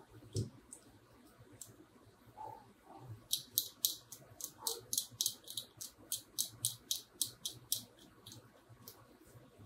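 Metal utility-knife tip scraping the circuit board of a guitar preamp in quick short strokes, about three or four a second. The strokes start about three seconds in and stop near the end. A light handling knock comes just after the start.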